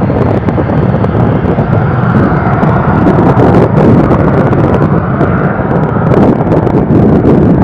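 Learjet 35's twin Garrett TFE731 turbofan engines at takeoff power: a loud, steady jet roar with a whine that drops a little in pitch.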